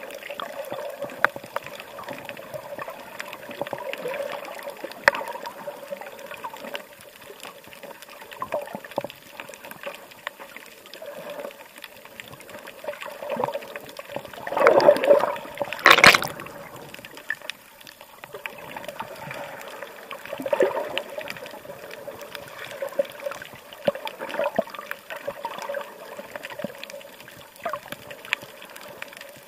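Water trickling and gurgling close by, uneven and bubbly, with a short loud burst of noise about halfway through.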